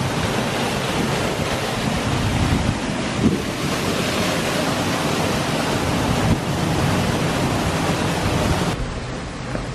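Creek water rushing and splashing down a small waterfall past broken concrete slabs, a steady loud noise that eases slightly near the end.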